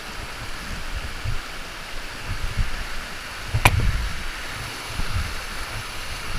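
Waterfall's rushing water as a steady hiss, with uneven low thumps and one sharp click a little past halfway.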